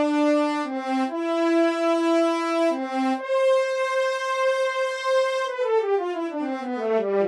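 Sampled brass instrument from an SF2 soundfont playing a solo melody: several held notes broken by two short lower notes, a long high note, then a quick descending run of notes near the end.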